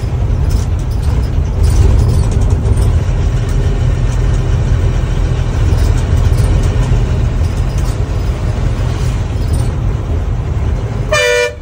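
Steady engine and road rumble of a vehicle moving along a highway. Near the end a vehicle horn gives one short blast.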